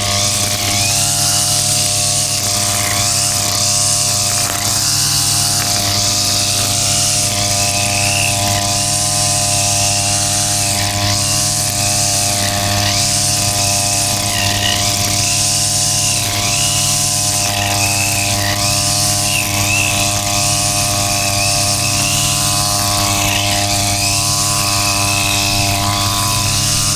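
A vehicle engine running steadily at constant speed, with a loud rush of wind or road noise over it.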